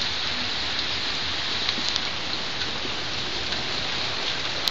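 Steady rain falling, an even hiss with a few short drop taps.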